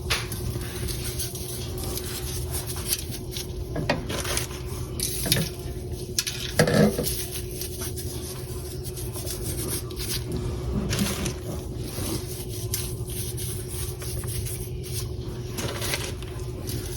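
Kitchen handling sounds while ribs are seasoned: scattered light taps and clinks of spice containers and utensils, with a louder knock about seven seconds in, over a steady low hum.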